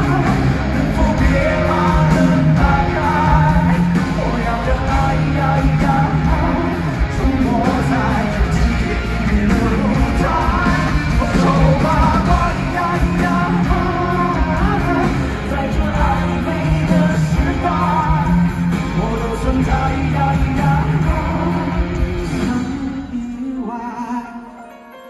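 Amplified live pop-rock music with singing over a band, heard from within an arena audience. It drops in level about two seconds before the end.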